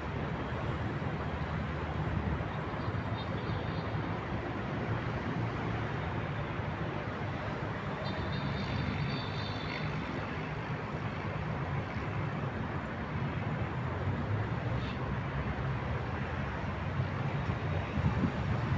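Steady city traffic noise: a continuous low rumble of cars and buses passing on the streets around the square, with faint high squeaks twice along the way.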